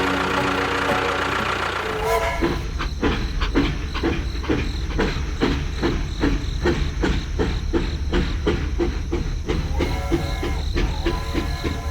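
Rhythmic mechanical clatter over a steady low hum, clacking about three times a second, starting about two seconds in after a short stretch of music. Two short horn-like tones sound near the end.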